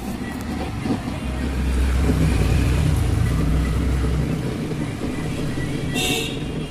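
Tower home theatre speaker putting out a continuous rumbling, hissy noise. A heavy low hum swells in for about three seconds in the middle, and a short crackle comes near the end.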